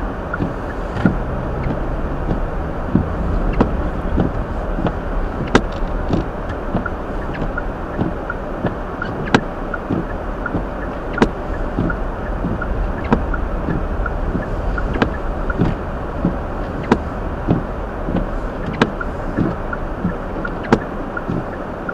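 Steady road and tyre noise inside the cabin of a Hyundai Elantra driving on a snowy road, with sharp ticks scattered through it; the loudest ones come roughly every two seconds.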